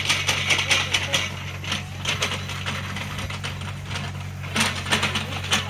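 Small CAT excavator's diesel engine running steadily under bursts of metallic rattling and clanking from the working arm and bucket as it digs soil.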